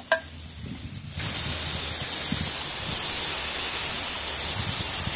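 A short click, then about a second in a loud, steady hiss starts suddenly as the bleed screw on a small LPG cylinder's valve is opened. Trapped air is venting out while the cylinder fills from a larger cylinder.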